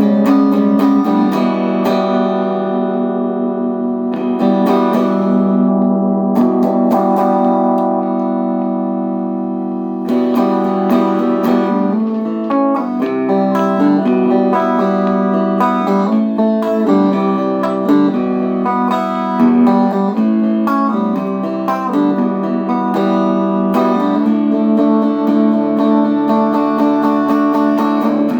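1985 Made-in-Japan Fender Performer electric guitar played through a Peavey Valve King Royal 8 tube amp with no effects or pedals: long ringing chords for about the first ten seconds, then faster picked notes and chords.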